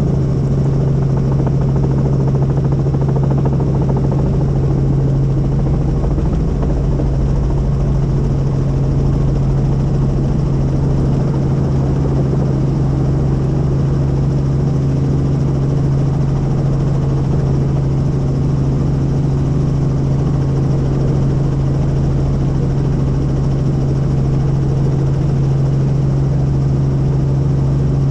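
Helicopter running steadily in flight: a constant low drone from rotor and engine, unchanged throughout.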